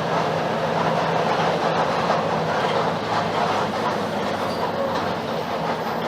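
Ride inside a moving Mercedes-Benz OF-1721 BlueTec 5 city bus: a steady diesel engine hum under continuous body rattle and road noise. The engine note fades away about two and a half seconds in, leaving the rattle and rolling noise.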